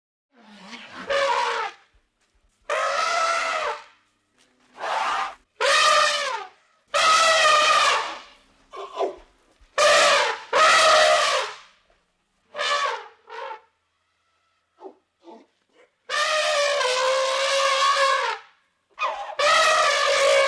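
Elephants trumpeting: a series of about a dozen calls, most of them one to two seconds long, separated by short silent gaps, with the longest call a little after the middle.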